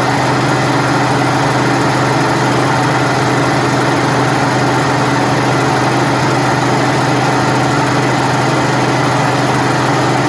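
Two high-speed straight-stitch sewing machines, a Janome HD9 and a Brother PQ1600S, running flat out at the same time at full stitching speed. The sound is a loud, steady mechanical whir.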